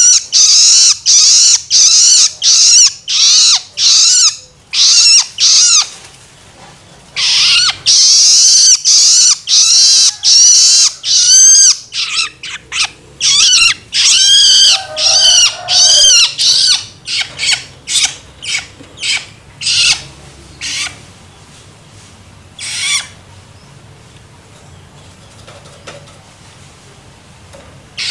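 Juvenile long-tailed shrike (cendet) giving loud, harsh begging calls to be fed, about two a second, each a short arching cry. The calls thin out after about twelve seconds, and the last one comes about five seconds before the end.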